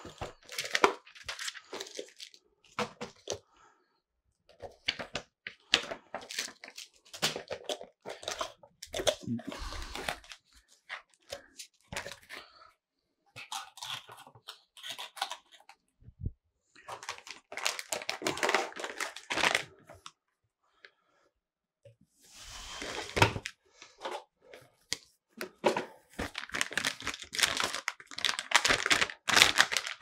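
Cardboard motherboard box being opened and a metallic anti-static bag handled: irregular crinkling and rustling with small cardboard knocks, in stops and starts.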